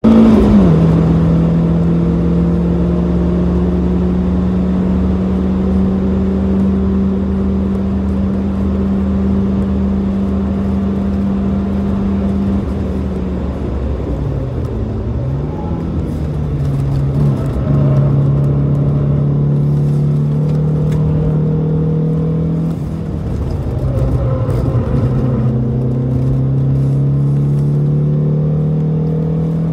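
Mercedes-Benz 190E 2.3-16's 2.3-litre 16-valve four-cylinder engine heard from inside the cabin at racing speed, holding a steady high note for long stretches. The pitch drops and wavers in the middle as the car slows for corners, then climbs again near the end under acceleration, over a haze of wind and road noise.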